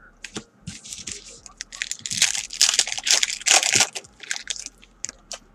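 Trading card pack wrapper being torn open and crinkled by hand: an irregular run of crackling rustles, loudest in the middle.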